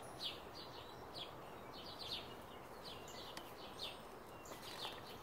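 A small bird chirping over and over, short high chirps about two or three a second, over faint steady outdoor background noise.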